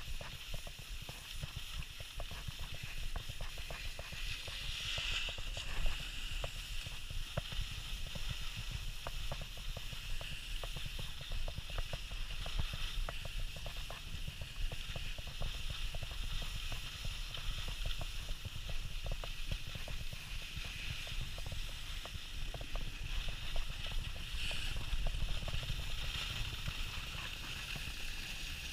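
Skis sliding over groomed snow: a steady scraping hiss dotted with many small clicks and chatter, over a low rumble of wind buffeting the camera's microphone.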